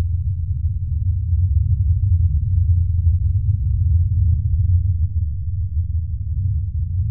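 A deep, steady low rumble with nothing in the higher pitches, unchanging throughout: a dark drone laid under the film's title card.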